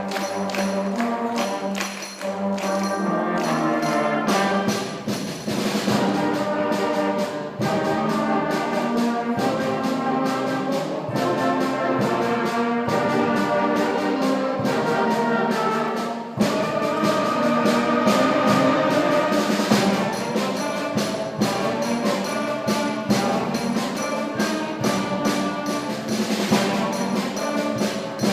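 A middle school concert band playing a piece, with brass (trumpets and trombones) carrying the melody over percussion. The music dips briefly about two-thirds of the way through, then comes back in full.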